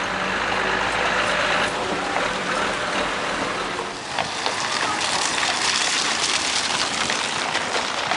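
Street traffic on a wet, slushy road: a motor vehicle's engine hum and tyre hiss. About four seconds in the sound changes to a brighter hiss with scattered clops of carriage horses' hooves on the pavement.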